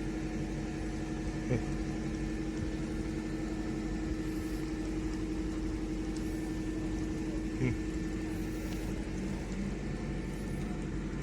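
Vehicle engine running steadily, a constant hum that holds one pitch, with two brief faint knocks.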